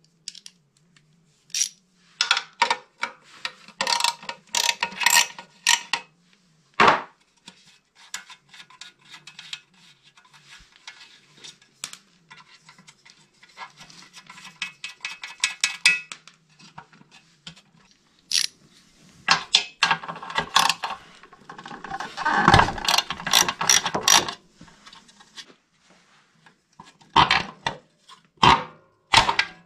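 Hand socket ratchet clicking in several spells of rapid ratcheting as nuts are run off the studs of a Honda EB 6500 generator's air-cleaner housing, with clinks of the socket on metal. A louder clatter of handling around two-thirds of the way through and a few separate knocks near the end as the plastic housing is worked loose.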